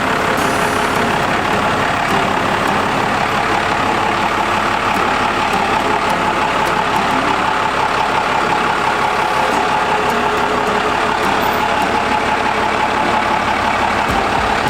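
Modified 12-valve Cummins inline-six diesel with a compound turbo setup running steadily at idle, with a thin steady whine that grows stronger near the end.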